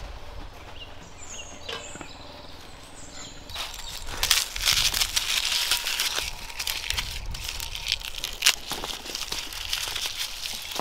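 Dry, papery garlic skins crackling and rustling as fingers peel the cloves from a bulb by hand. The crackling starts about three and a half seconds in, after a quieter opening.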